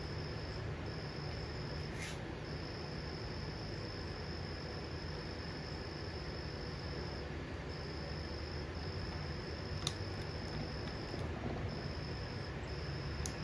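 A cricket trilling in one steady high note, broken by short pauses every second or few, over a steady low hum. Two light clicks come about two seconds in and near ten seconds.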